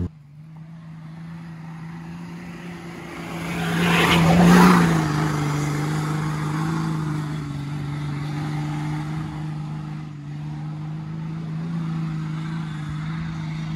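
Off-road 4x4 vehicle engine running steadily, with a vehicle passing close by, loudest about four and a half seconds in.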